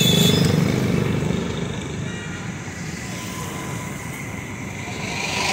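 Small portable generator engine running with a steady drone, louder at first and easing off after a second or two.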